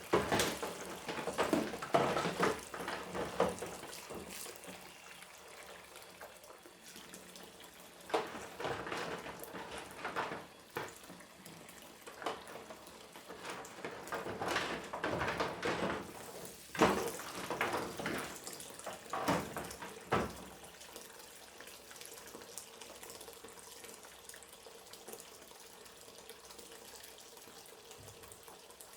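Washing up dishes by hand in a kitchen sink: water from the tap running and splashing, with dishes and cutlery clattering in several bursts. The last several seconds are quieter, with only the water going.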